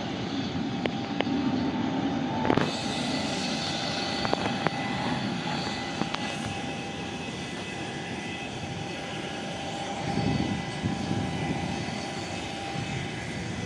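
Jet aircraft engines running across an airport apron: a steady rumble with a constant high whine, the hiss growing fuller about two and a half seconds in and a louder low swell about ten seconds in.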